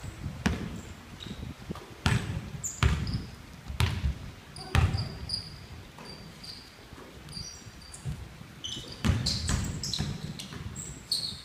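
Basketball bouncing on a wooden gym floor, several hits at uneven intervals, with sneakers squeaking briefly on the court in between.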